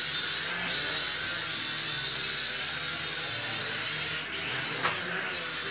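Syma X5 toy quadcopter's small electric motors and propellers whirring as it hovers, a steady high whine that wavers slightly in pitch. A single short click about five seconds in.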